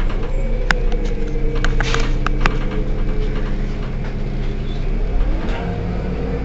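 Heuliez GX 127 city bus's diesel engine idling, a steady hum with a few sharp clicks about one to two and a half seconds in. The engine note rises briefly and falls back about five seconds in.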